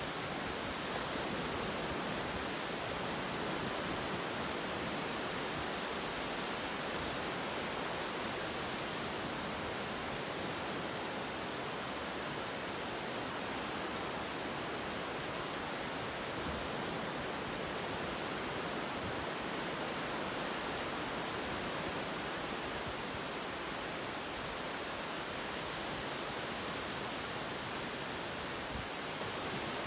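A steady, even rushing noise like pink noise or distant rushing water, holding the same level throughout with no rise and fall.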